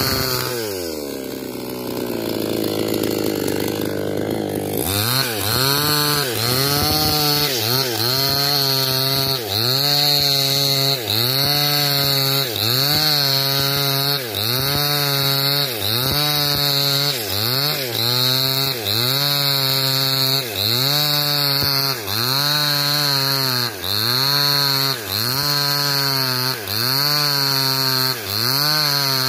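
Two-stroke chainsaw ripping lengthwise along an old coconut palm log. The engine drops back to idle for a few seconds, then revs up sharply about five seconds in and keeps cutting. Under load its pitch dips and recovers about once a second.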